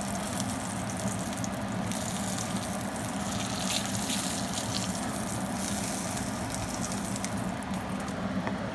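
A5 Wagyu steak sizzling and crackling in rendered beef fat in a hot cast-iron skillet as it is seared and turned. The high sizzle fades near the end as the steak is lifted out of the pan.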